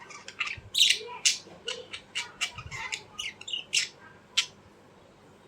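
A bird giving a quick run of about fifteen short, harsh squawks, stopping shortly before the end.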